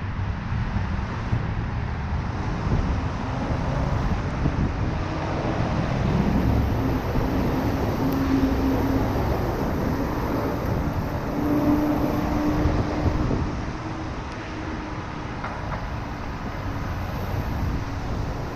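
Steady city traffic noise heard from a moving bicycle: a continuous rumble of cars and other vehicles, with a low hum swelling briefly about eight and again about twelve seconds in.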